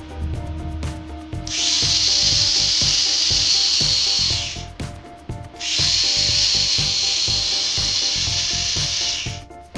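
Homemade gear motor, a small brushed DC motor driving a gear train, switched on twice and running for about three seconds each time with a high whine and gear rasp, each run cutting off sharply.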